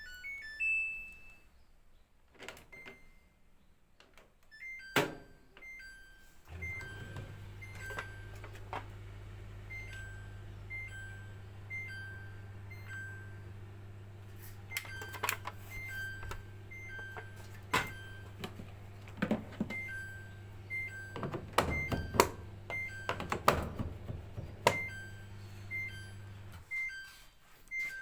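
Samsung auto dispenser's alarm beeping over and over, a higher and a lower tone in turn about once a second: the warning that the dispenser is not properly locked. A low steady machine hum runs under it from about six seconds in until near the end, with scattered knocks and clicks.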